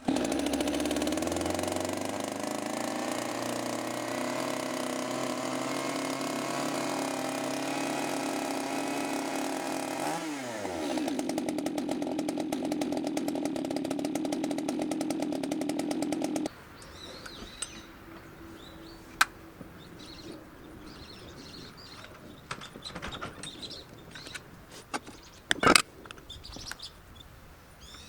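Shindaiwa E1027TS two-stroke chainsaw engine running steadily. About ten seconds in its pitch drops sharply to a rapid, pulsing idle, and a few seconds later the engine cuts out abruptly. Small clicks and a sharp knock follow.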